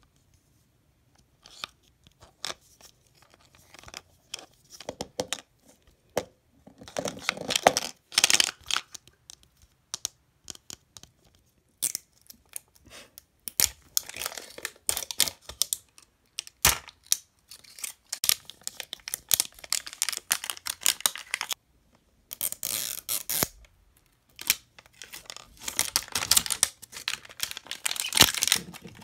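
Plastic packaging being torn and crinkled as a Mini Brands capsule ball is unwrapped, its seal sticker peeled off the plastic shell. It comes in irregular crackling bursts with sharp clicks from the shell being handled.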